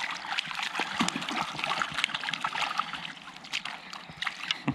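Water splashing and trickling irregularly as a small hooked trout thrashes at the surface while it is brought into a landing net.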